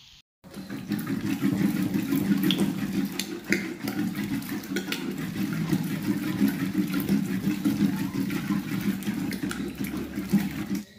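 A masher churning thick cooked mustard greens mixed with maize flour in a pot, making a steady wet squelching with frequent small knocks. It starts about half a second in.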